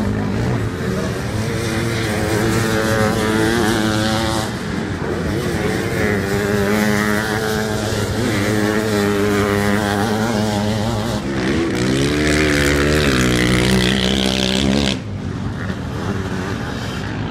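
Several off-road racing engines revving hard around a dirt motocross track, their pitch climbing and falling as they accelerate and shift. The loudest machine passes close about twelve to fifteen seconds in, then the sound drops suddenly to more distant engines.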